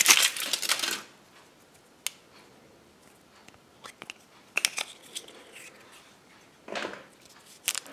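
Foil wrapper of a Kinder Surprise egg crinkling for about a second, then the thin chocolate shell cracking open and the plastic capsule inside being handled, heard as a few separate small cracks and clicks.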